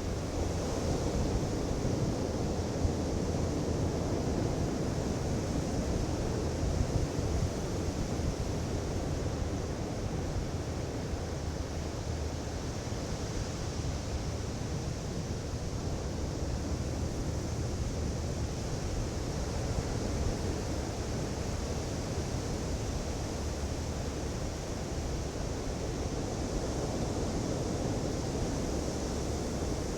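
Ocean surf on a beach: a continuous rushing wash of breaking waves over a low rumble, with the hiss slowly swelling and easing as sets come in.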